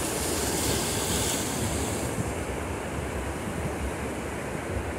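Sea waves breaking and washing in at a river mouth, with a brighter rush of surf in the first two seconds. Wind buffets the microphone, adding a low rumble.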